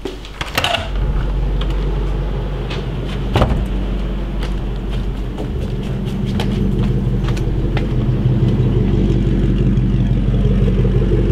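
Ford GT's supercharged V8 running low and steady, getting a little louder near the end as the car pulls out. A few sharp clicks and knocks sit over it in the first seconds.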